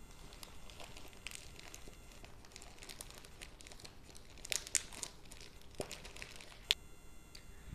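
Plastic courier mailer bag being crinkled and peeled open by hand: faint, scattered crackles, with a few louder crinkles about halfway through and one sharp crackle near the end.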